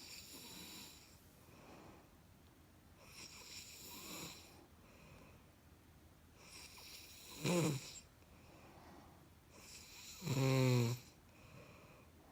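A woman snoring in her sleep: soft breaths about every three to four seconds, then a short snore about seven seconds in and a longer, louder one near ten seconds.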